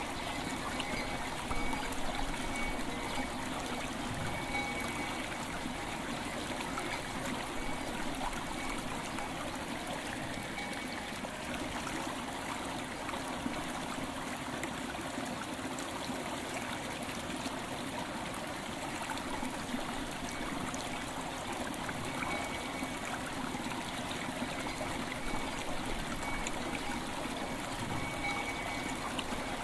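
River water flowing and trickling steadily, with a faint bell tone ringing now and then.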